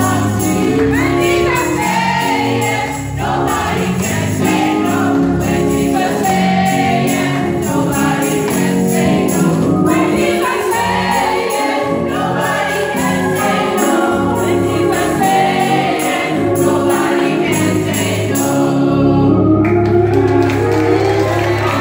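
Children's choir singing an upbeat song over backing music, with steady jingling percussion. Near the end the song breaks off abruptly and a different performance starts.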